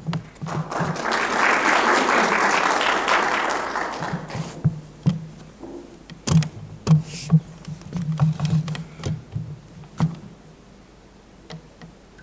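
Audience applauding for about four seconds, with footsteps on the wooden stage. Then scattered knocks, taps and thuds as the guitarist sits down on a wooden chair and settles a classical guitar on his knee.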